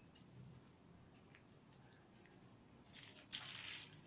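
Near silence for about three seconds, then short bursts of newspaper rustling and crinkling as the folded sheet and cloth tape measure are moved across it.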